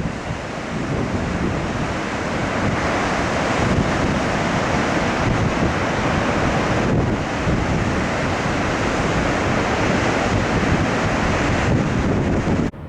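Ocean surf rushing and breaking on a beach, steady and loud, with wind buffeting the microphone. It cuts off abruptly near the end.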